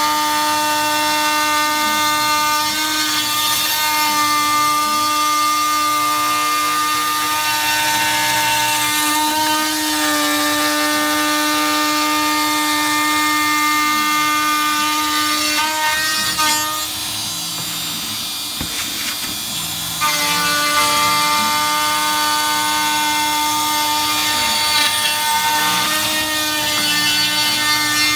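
Shapeoko 3 CNC router's spindle whining at a steady pitch as its bit mills plywood, over the rushing of a vacuum hose picking up the chips. The pitch shifts slightly now and then, and the whine drops out for about three seconds a little past halfway, leaving a quieter rush before it comes back.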